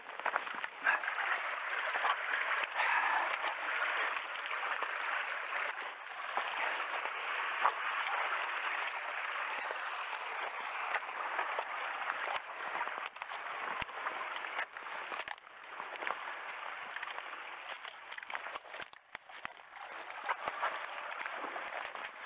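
Someone moving quickly on foot through dry grass and brush beside a shallow creek: steady rustling of vegetation against clothing and the body, with footsteps and splashes of water.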